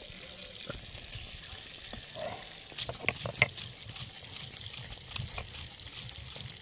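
Stone pestle (nora) worked over boiled onions on a flat grinding stone (sil-nora). From about two and a half seconds in it makes a wet crushing and scraping sound, with irregular clicks of stone on stone as it is rocked back and forth.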